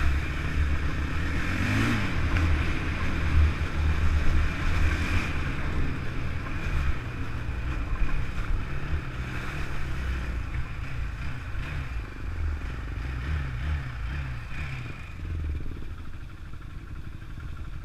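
Honda TRX450R sport quad's single-cylinder four-stroke engine running under way, its revs rising and falling as it is ridden, a little quieter near the end.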